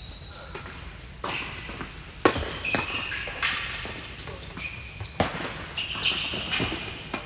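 A doubles tennis rally: tennis balls struck by rackets and bouncing on the hard court, about a half-dozen sharp hits, the loudest about two seconds in, ringing in a large indoor tennis hall. Short high squeaks come between the hits.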